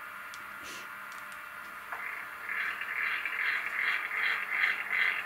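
Sound decoder of a Piko model Class E 91 electric locomotive playing its locomotive sounds while the model stands still: a faint hiss with a few clicks, then, about two seconds in, a rhythmic mechanical pulsing, about three beats a second, that grows louder.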